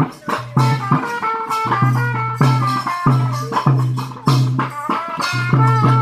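Music with fast, dense percussion and rattle-like hits under a wavering high melody and a repeated low note.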